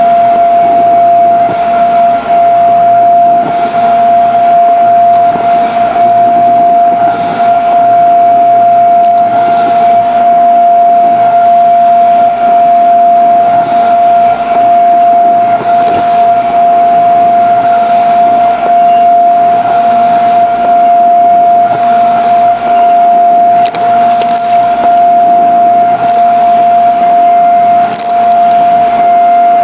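Shark vacuum cleaner running steadily with a constant high whine, with scattered small ticks and rattles from crunchy debris being sucked up.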